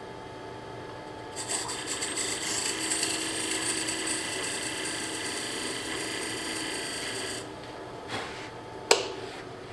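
Wood lathe running with a steady hum while a turning tool cuts a bead into a spinning wooden bowl. A high scraping cut starts about a second and a half in and stops about six seconds later. A single sharp knock comes near the end.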